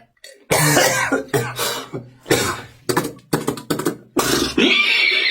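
Beatboxer's mouth-made sound effects: a run of short breathy, throaty bursts with brief gaps, then a longer voiced sound with a hiss near the end.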